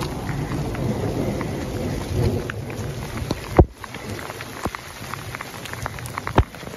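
Rain falling steadily, with many small drop ticks close to the microphone and a low thunder rumble that fades out about halfway through. Two sharp taps stand out, one about halfway and one near the end.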